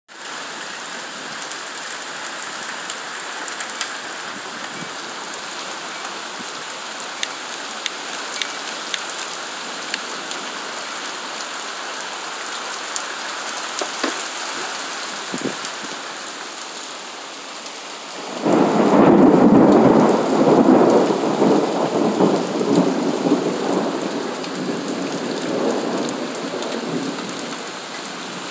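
Steady rain falling, with scattered sharp drips ticking. About 18 seconds in, a loud peal of thunder breaks in and rolls in uneven surges for several seconds before fading away.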